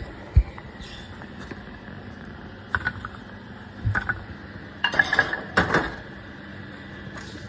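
Kitchen dishes and utensils clinking and clattering as they are handled, after a low thump near the start; a few short clusters of clinks, busiest around five to six seconds in.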